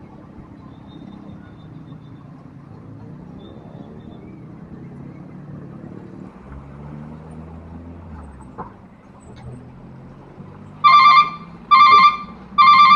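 Road traffic running past a railway level crossing, with a heavy vehicle's engine droning through the middle. About eleven seconds in, the crossing's electronic alarm bell starts ringing loudly, a repeated ring a little under once a second, three times before the end, warning that a train is coming.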